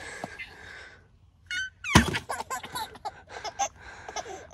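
Plastic bottle tossed in a bottle flip, landing with a thunk about two seconds in and then knocking over and clattering a few times: a missed flip.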